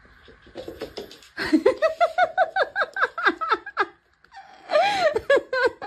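A person laughing: a rapid run of short falling "ha" syllables, about four a second, then a second burst of laughter near the end.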